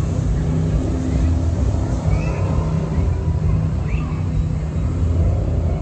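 Jet boat engine running at speed across the water as a steady low drone, with a few brief high chirps over it about two and four seconds in.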